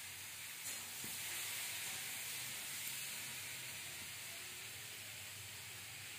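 Steady faint hiss of room noise, with a couple of faint soft ticks.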